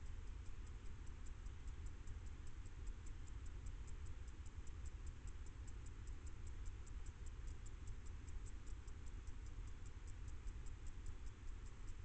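A night-singing insect chirping in a steady high-pitched rhythm, about four or five pulses a second, faint over a low microphone rumble and hiss.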